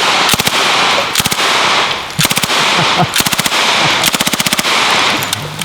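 Thompson submachine gun firing .45 ACP in several short bursts of full-automatic fire, with the echo carrying on between bursts.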